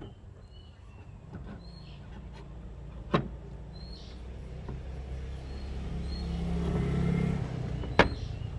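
A motor vehicle passing nearby: its engine hum swells over several seconds, then drops away about seven and a half seconds in. Two sharp knocks, about five seconds apart, stand out above it.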